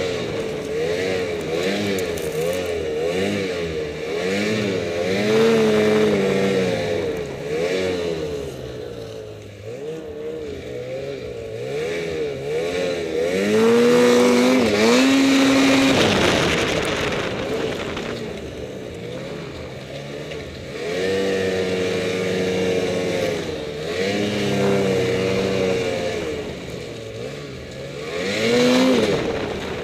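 2013 Ski-Doo Summit X 800R E-TEC two-stroke twin snowmobile engine revving up and down again and again while riding through deep snow, with a long, loud high rev about halfway through and a short one near the end.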